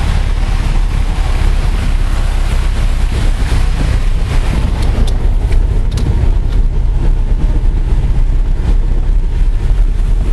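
Car driving through thick mud and floodwater, heard from inside the cabin: a loud, steady rumble of engine and tyres with some hiss, and a few sharp knocks about five and six seconds in.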